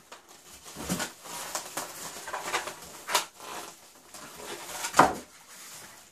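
Polystyrene foam packing pieces squeaking and scraping against a cardboard box as they are lifted out, with a sharp knock about five seconds in.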